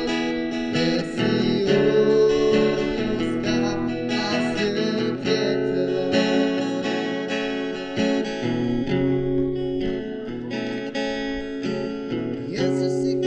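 Acoustic guitar strummed through a song, with a voice singing along.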